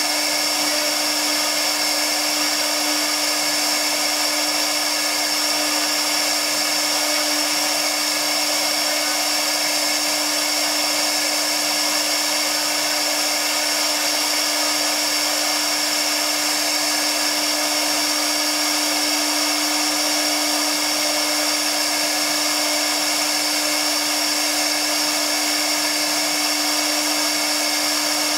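CNC router spindle running steadily while its small bit carves relief into MDF board: an even whine with a high tone over a cutting hiss, unchanging throughout.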